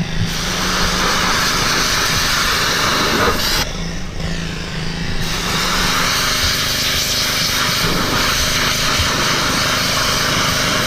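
2400 PSI Kärcher pressure washer running, its motor drone steady under the hiss of the water jet. The spray cuts out for about a second and a half a little under four seconds in, then resumes.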